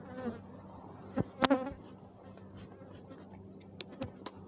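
Many defensive honey bees buzzing around the beekeeper in a steady hum, the bees following him from hive to hive. About a second and a half in, a brief louder buzz with a pitch that rises and falls.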